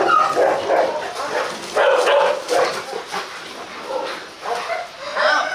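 Two Rottweilers barking and vocalising in bursts during rough play, loudest at the start and about two seconds in.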